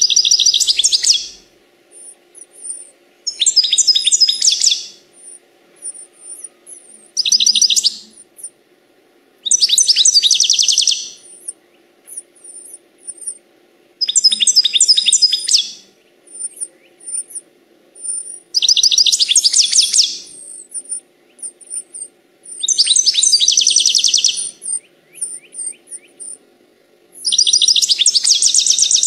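European goldfinch singing: bursts of rapid, twittering high notes about every four to five seconds, with short thin chirps between them.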